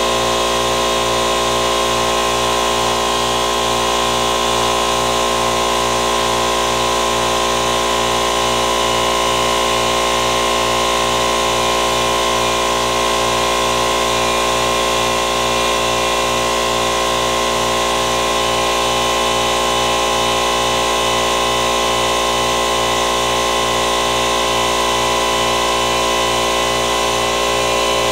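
A power tool running steadily without a break, with a constant hum.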